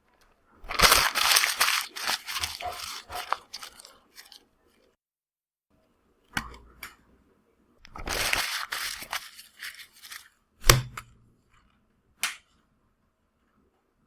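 Paper being crumpled, crackling in bursts: two long spells of dense crackle with short ones between, and a single sharp, loudest crack about three-quarters of the way through.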